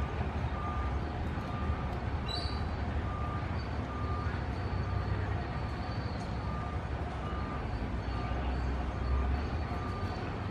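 Outdoor background noise: a steady low rumble with a faint high beep repeating a little under twice a second, and a faint thin high whine from about two seconds in.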